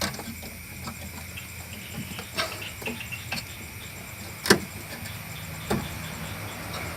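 Scattered sharp clicks and knocks of tools and refrigerator parts being handled during disassembly, the loudest about four and a half seconds in, over a steady low hum.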